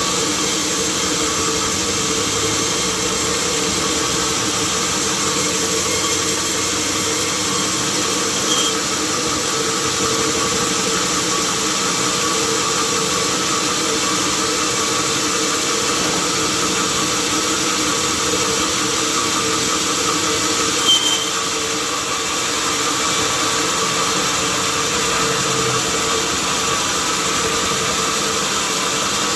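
Sawmill machinery running steadily with a constant hum, with two brief high squeaks, one about a third of the way in and another about two-thirds in.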